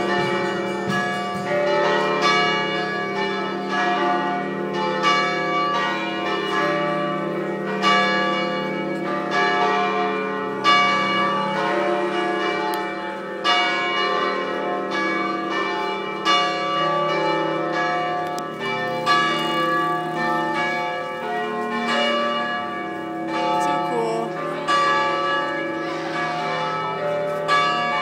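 Church bells pealing: several bells of different pitches struck in quick, irregular succession, each tone ringing on under the next.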